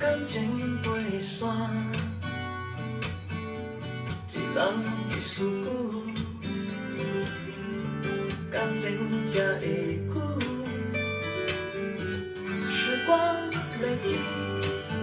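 Acoustic guitar music played back through a pair of AER full-range drivers on open baffles, driven by a 300B tube amplifier, as heard in the listening room.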